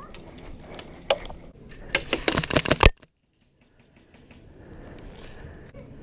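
Airsoft gun firing a rapid burst of about a second, a fast run of sharp clicks, after a couple of single clicks; the sound then cuts off suddenly.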